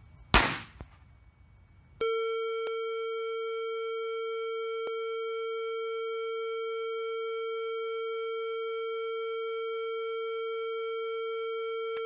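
A short loud bang about half a second in. From about two seconds in, a 555-timer light-to-sound circuit puts out a steady, buzzy electronic tone at one unchanging pitch, with two faint clicks.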